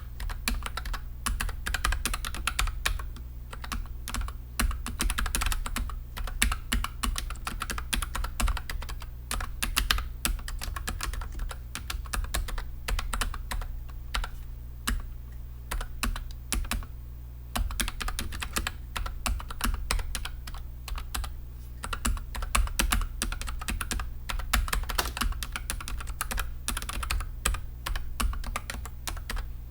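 Continuous typing on a NuPhy Air60 low-profile mechanical keyboard with Gateron red linear switches. The keystrokes come as quick, irregular runs of clicks, with a few brief pauses between runs.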